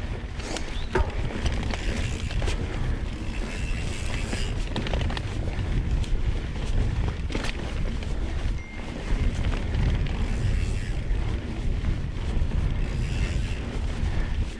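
Mountain bike rolling along a dirt trail, with wind buffeting the microphone and the tyres rumbling on the ground. Scattered clicks and rattles come from the bike over bumps.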